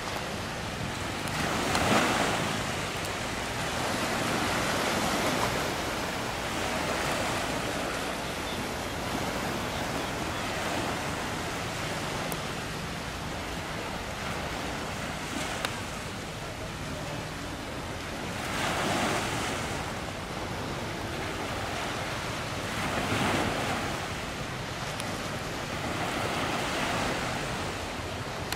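Sea waves washing and wind, a steady rush that swells in louder surges every few seconds, with wind buffeting the microphone.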